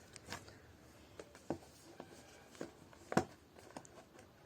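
Scattered light clicks and rustles of a small cardboard product box and its packaging being handled and opened by hand, with one sharper click about three seconds in.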